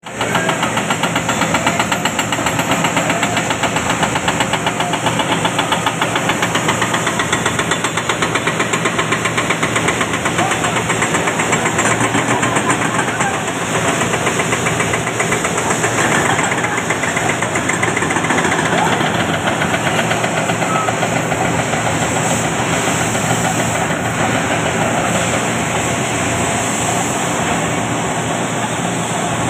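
Heavy diesel earthmoving machinery working: a Caterpillar crawler bulldozer and excavators, their engines running steadily under a fast, rhythmic clatter.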